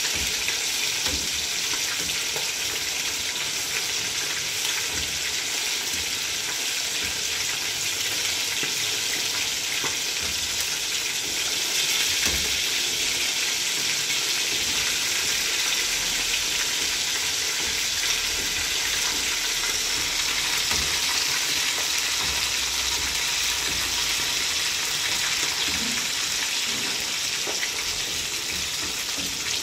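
Two whole fish sizzling steadily in very hot oil in a frying pan, with hot oil being spooned over them.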